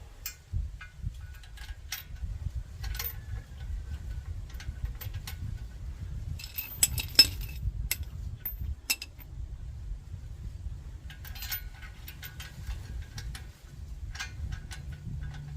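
Small metal hardware clinking and clicking as nuts, washers and fittings are handled and fitted by hand, with a cluster of sharper clinks about halfway through, over a low steady rumble.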